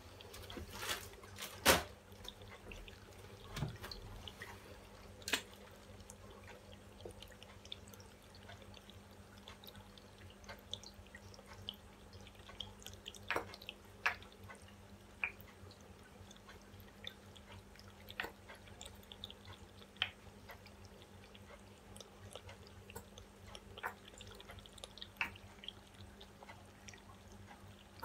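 Scattered light clicks and taps from a plastic squeeze bottle and small plastic cups being handled while pouring medium is poured into cups of acrylic paint, with soft drips. A steady low hum runs underneath.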